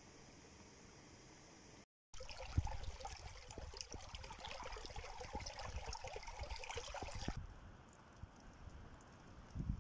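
Shallow stream running and splashing over stones, with a few low thumps. It starts suddenly after a brief dead gap and cuts off about two seconds before the end, leaving a faint hiss.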